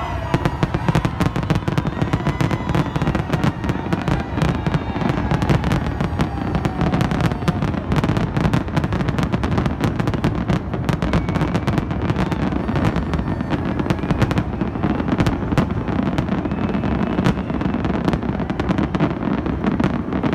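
Fireworks display: a rapid, nearly continuous barrage of bangs with no let-up.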